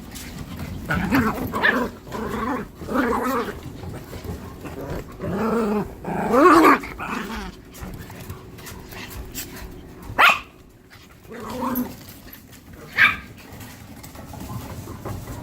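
Small dogs and puppies play-fighting: a run of growls and grumbling barks for the first half, then two short sharp yaps, one about ten seconds in and another about three seconds later.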